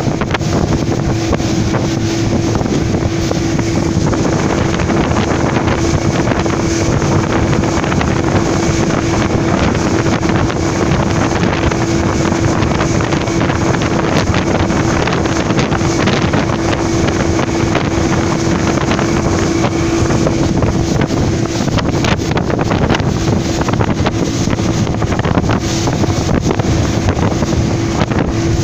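Passenger speedboat's engine running at steady cruising speed with a constant drone, over the rush of spray and water along the hull and wind buffeting the microphone.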